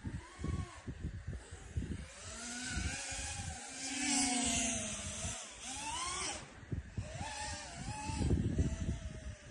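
Electric motors of a 5-inch FPV freestyle quadcopter whining, their pitch swooping up and down with the throttle, over gusty wind rumble on the onboard GoPro's microphone.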